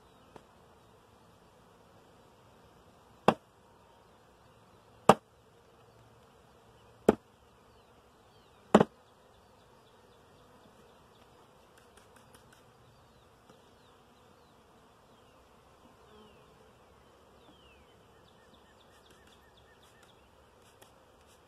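Faint buzzing of honeybees around an open nucleus hive, broken by four sharp knocks about two seconds apart, starting about three seconds in, as wooden hive frames and covers are handled.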